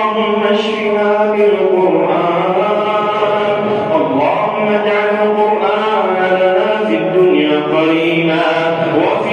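A single voice chanting a supplication in a slow, melismatic style, holding long notes that slide up and down in pitch.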